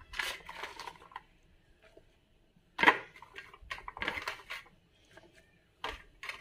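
Chopped onion, garlic and chilli pieces scooped by hand off a steel plate and dropped into a steel mixer-grinder jar, clattering and rustling in irregular handfuls, the loudest about three seconds in.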